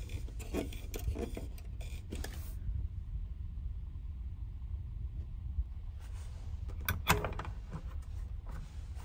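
Steady low rumble of a ferry's engines heard inside a passenger cabin. Over it, a plastic air-vent knob is turned with a few clicks and scrapes in the first couple of seconds, and a sharp click and rattle comes about seven seconds in as a hand touches a metal-framed net shelf.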